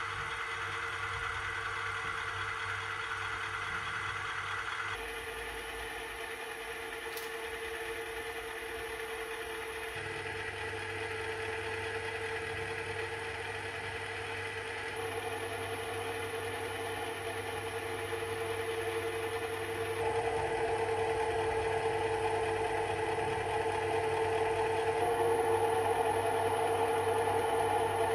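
Recorded idling sound of an SNCF BB 66000 diesel locomotive, played through small ESU SugarCube 15x11 mm loudspeakers on a model locomotive. It is a steady engine idle with a strong steady hum. Its tone changes abruptly every few seconds as the speaker changes, and it is louder and fuller in the last third, through a 1 W SugarCube in a sound box.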